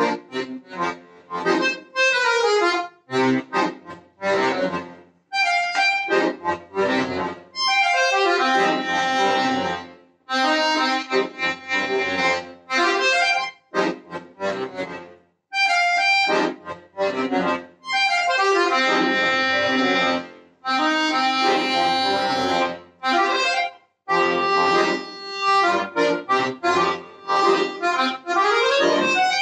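Chromatic button accordion played solo, with sustained chords and quick runs of notes in phrases separated by short breaks.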